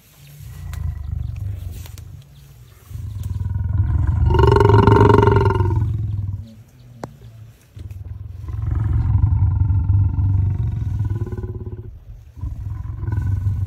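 Lion roaring: a run of long, deep calls with a low grumble, the loudest about four seconds in, followed by another long call and the start of a third near the end.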